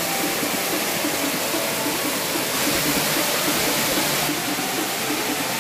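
Waterfall spray pouring onto rocks and into a pool, a steady rushing of water.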